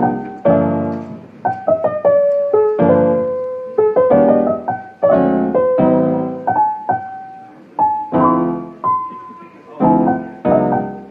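Background piano music: a slow run of struck notes and chords, each ringing and then dying away.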